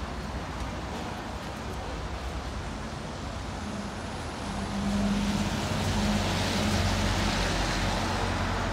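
City street traffic: a steady rush of road noise from passing cars and vans. About halfway through, a nearby vehicle's low engine hum comes in and the noise grows louder.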